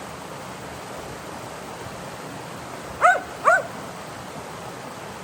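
A dog barks twice in quick succession about three seconds in, over the steady rush of creek water.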